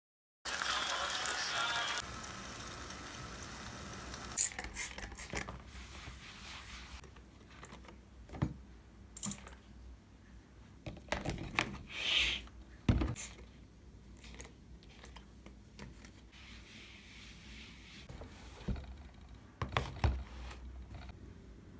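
Desk sounds while studying: scattered taps and clicks with a few short rustles, irregular and fairly quiet.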